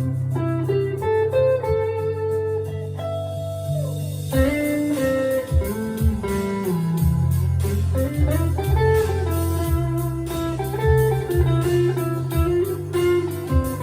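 Rockburn Strat-style electric guitar played through a small valve amp. Continuous picked melodic lines move over sustained low notes.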